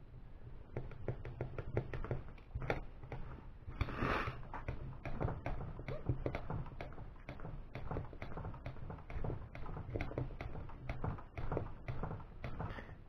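Irregular light clicks and taps of small screws, washers and hand tools being handled while fitting hardware to an aluminum RC-car steering bellcrank assembly, with a short rustle about four seconds in.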